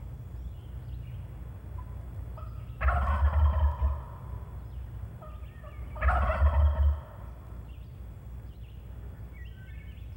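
Wild turkey gobbler gobbling twice, about three seconds in and again about six seconds in, each gobble about a second long, with a few faint short calling notes near the end. The gobbler is answering the calling before it finishes, the sign of a bird that is worked up and coming in.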